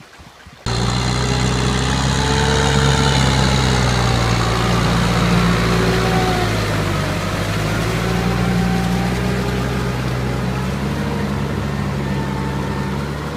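Kubota M6040SU farm tractor's diesel engine running steadily as it works a flooded rice paddy. The sound cuts in suddenly about a second in, and the engine note dips briefly around the middle.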